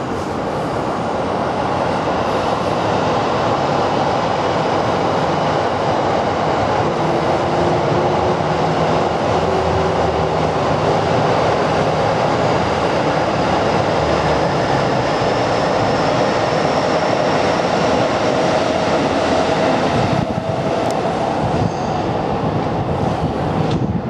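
Loud, steady rumbling noise with faint whining tones that slowly glide up and down, dipping briefly about twenty seconds in.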